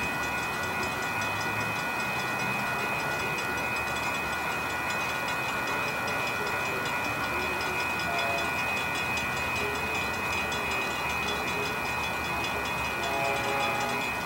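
Railroad grade-crossing warning bells ringing steadily, with the signals activated for an approaching train.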